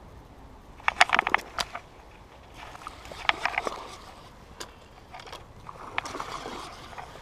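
Three bursts of quick splashing and rattling at the water's edge, about a second in, around three seconds and around six seconds: a hooked bass thrashing as it is landed, mixed with handling noise close to the camera.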